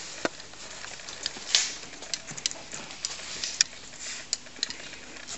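Handling noise from a handheld camera: irregular light clicks and taps over a faint hiss, with one louder tap about a second and a half in.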